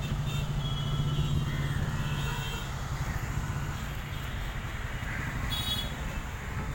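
Road traffic rumbling steadily from a nearby street, louder in the first few seconds, with a brief high-pitched sound near the end.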